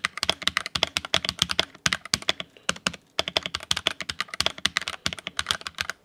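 Redragon K631 Castor Pro SE hot-swap mechanical keyboard being typed on fast, a rapid run of keystroke clicks as a sentence is typed, with brief pauses about two and three seconds in.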